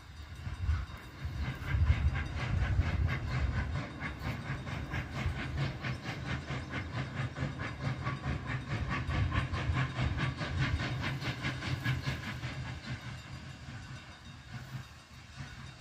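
Steam locomotive working toward the listener, its exhaust chuffing in a fast, even rhythm over a low rumble. The chuffs fade near the end.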